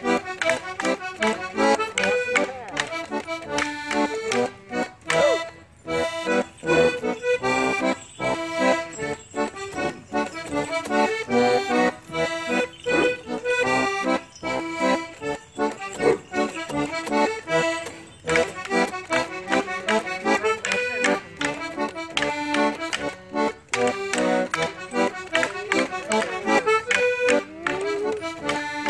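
Accordion playing a lively traditional Morris dance tune.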